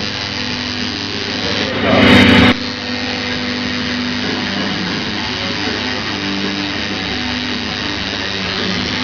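Electric tattoo machine buzzing steadily against the skin, with a louder, harsher stretch of under a second about two seconds in.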